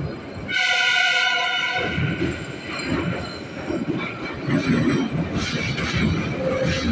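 Metro train horn sounding one steady blast of just over a second, starting about half a second in, over the low rumble and knocking of the moving train.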